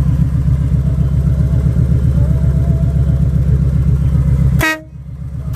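Kawasaki Voyager motorcycle engine idling, cutting off sharply a little over four and a half seconds in. A short toot from the newly fitted dual trumpet air horns follows, with another starting right at the end.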